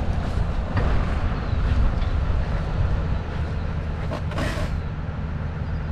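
Tractor engine running steadily with a low hum, with a few light clicks and a short hiss about four seconds in.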